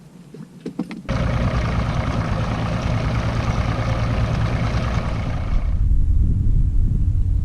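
Bass boat's outboard motor throttling up: about a second in a sudden loud rush of motor and water noise begins, easing after about five seconds into a steady low engine drone with a hum.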